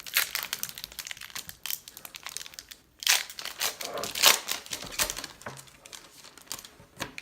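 Plastic-foil trading-card pack wrapper crinkling and being torn open, a run of crackles and rustles that is loudest about three to four and a half seconds in.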